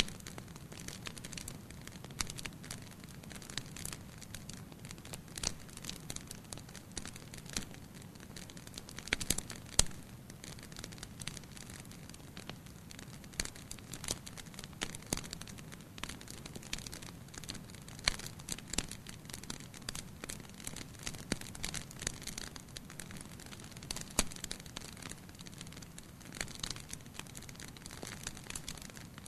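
Wood fire burning in a fireplace: a soft steady rumble of flames with irregular crackles and sharp pops throughout, a cluster of louder pops about ten seconds in.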